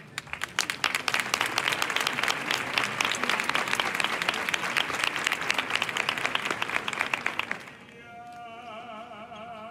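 Crowd applauding hard for about seven and a half seconds, then stopping. Near the end a single voice starts singing with a strong vibrato.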